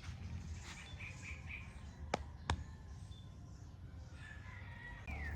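Faint chirps of small birds over a steady low background rumble, with two sharp clicks close together about two seconds in.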